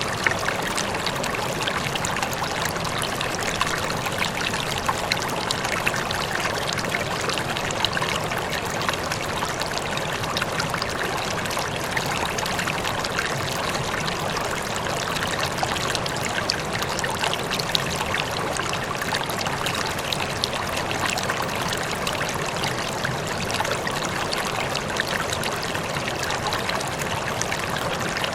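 Running water, a steady rushing flow with fine splashing.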